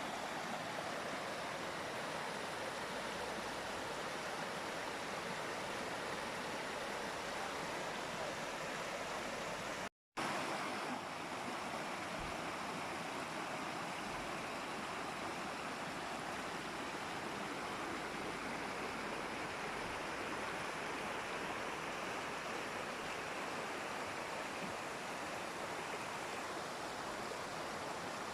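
Waterfall rushing in a steady, even roar of falling water, with a brief total dropout to silence about ten seconds in before the same sound resumes.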